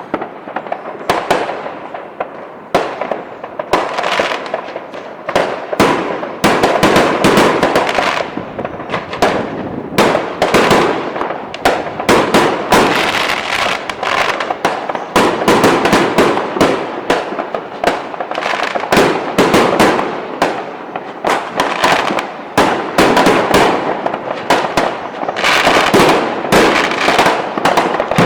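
Fireworks going off in a dense, unbroken barrage: many sharp bangs and crackles overlapping, several each second.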